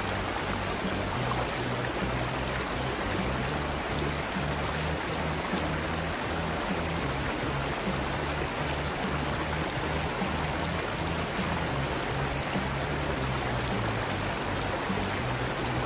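River water rushing and splashing over rocks at the bank, a steady hiss of moving water. Underneath runs background music with a low bass line that steps from note to note.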